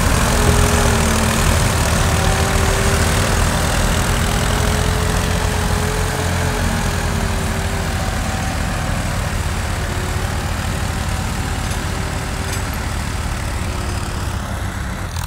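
Massey Ferguson tractor's diesel engine running steadily under load while hauling a trolley heaped with sand through loose sand, with a faint wavering whine over the drone, easing a little toward the end.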